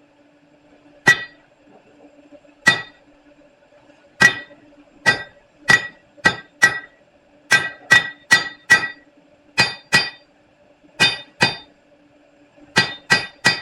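Hand hammer striking a hot 5/8 bar on an anvil to draw it out: about eighteen ringing blows, spaced out at first and then coming quicker, often in pairs. A faint steady hum runs underneath.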